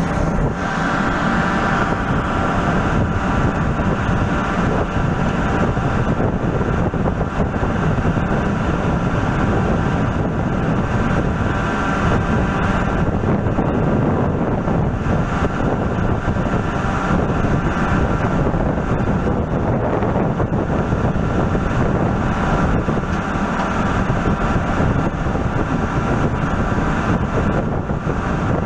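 Steady machinery drone with several constant tones over a dense rumble and hiss, unchanging and without any breaks.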